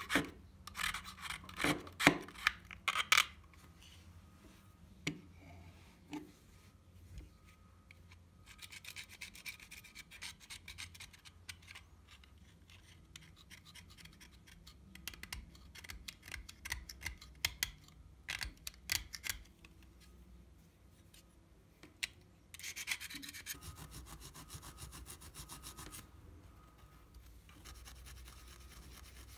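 Hand-tool scraping and rubbing on a workpiece in irregular strokes, broken by sharp clicks and knocks that are loudest in the first three seconds. A steadier stretch of rubbing comes about three quarters of the way through.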